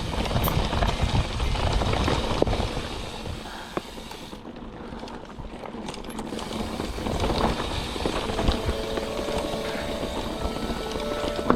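Mountain bike riding over a rough dirt trail: tyre and frame rattle mixed with wind rushing on the microphone, loudest in the first few seconds. Background music with held notes comes in about two-thirds of the way through.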